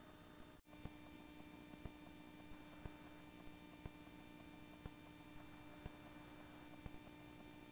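Near silence: a faint steady hum with soft ticks about once a second, and a brief dropout just over half a second in.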